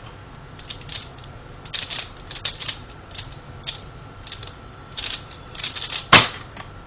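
Pyraminx puzzle being turned rapidly by hand: runs of quick plastic clicks and clacks in short bursts. About six seconds in comes a single loud sharp knock.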